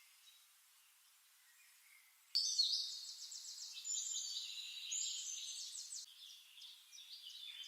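Near silence for about two seconds, then a click and birds singing: rapid high-pitched trills and chirps.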